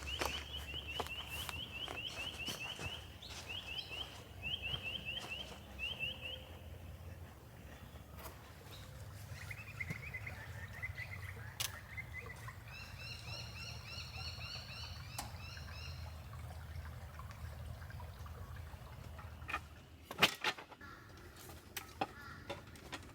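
Birds calling: rapid runs of short repeated high notes, then a warbling phrase, then another run of repeated notes. A few sharp knocks come near the end.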